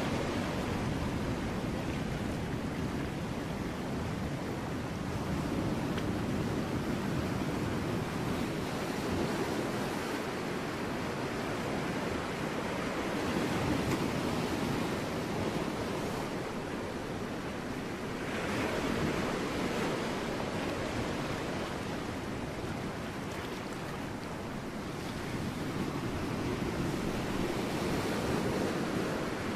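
Ocean surf breaking on rocks: a continuous rushing wash that swells and eases every several seconds, with a stronger, brighter surge about eighteen seconds in.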